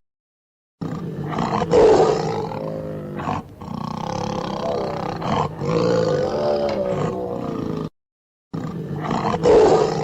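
An animal's loud, pitched calls, broken by a short silence near the start and another about eight seconds in, after which the same sequence of calls starts over.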